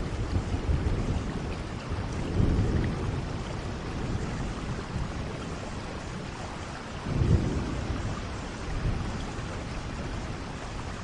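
Steady rain with low rumbles of thunder, swelling about two and a half seconds in and again about seven seconds in.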